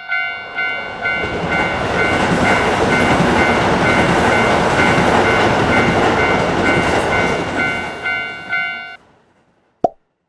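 A Japanese level-crossing warning bell rings steadily at about two strikes a second. Over it rises the loud rumble and clatter of a passing train. The bell and train sound stop about nine seconds in, and a single sharp click comes near the end.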